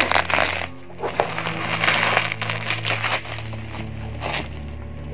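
Bubble-wrap packaging crinkling and crackling as a knife cuts through it and a hand pulls it apart: irregular rustling with many small crackles and a short lull about a second in.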